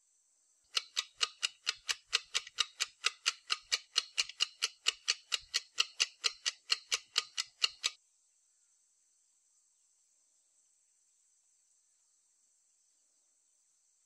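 Rufous woodpecker hammering at a papery ant nest: a fast, even series of sharp knocks, about four a second, that stops abruptly after some seven seconds.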